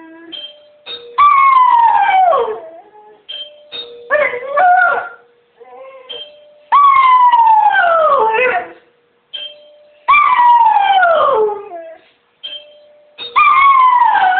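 Greyhound howling, her reaction to the doorbell: about five long howls, each sliding down in pitch, with short steady notes in the gaps between them.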